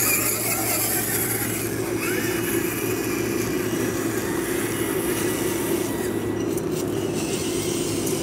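Small electric motors and geartrains of radio-controlled scale crawler trucks running steadily as they crawl over dirt, with a faint higher whine rising about two seconds in and fading out near six seconds.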